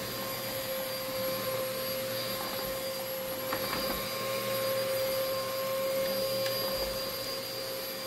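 CleanView vacuum cleaner running steadily with a constant high whine as its nozzle is passed over a cat lying on a fabric blanket.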